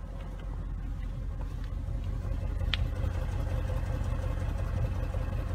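Audi RS6 Performance's twin-turbo V8 idling steadily through its sport exhaust, a deep low rumble heard close to the tailpipe. A single brief high chirp is heard about halfway through.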